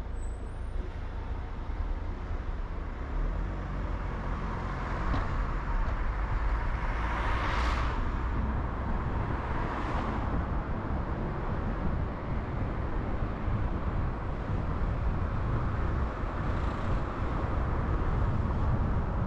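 Road noise of a car being driven: a steady low rumble with tyre and wind hiss, swelling briefly twice near the middle.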